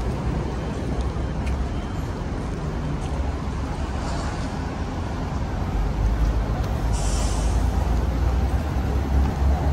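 Street traffic with buses, a steady low rumble, and a short hiss about seven seconds in.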